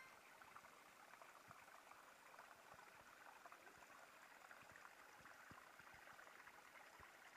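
Near silence: a faint, steady hiss of outdoor ambience, with a few soft low taps scattered through it.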